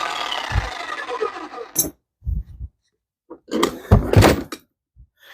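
A power tool running against the engine block stops about two seconds in. A few dull thumps follow, then a cluster of loud metal knocks near the end, as the seized pistons are worked out.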